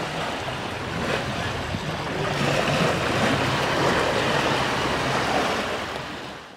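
Small lake waves lapping and splashing on a stony shore, a steady wash that fades out near the end.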